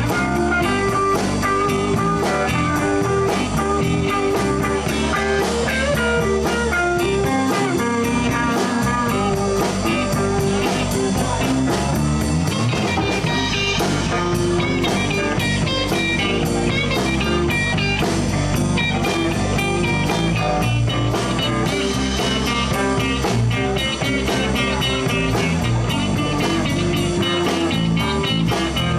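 Live blues band playing an instrumental break between verses: guitars, bass and drums, no singing, with a busy line of guitar notes on top.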